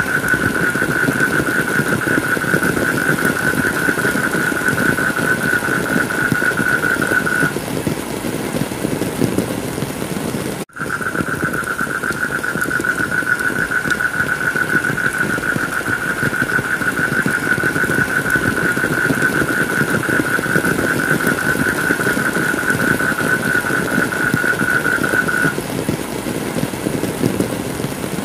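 Heavy rain falling steadily, a dense even hiss, with a steady high-pitched tone running over it. The tone stops a few seconds before the whole sound cuts out for an instant about eleven seconds in, then comes back and stops again near the end.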